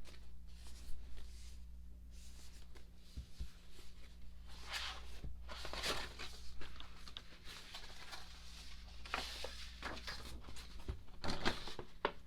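Paper and plastic rustling and light handling noises as a K-pop album and its inserts are paged through, in several short bursts. A low steady hum runs underneath.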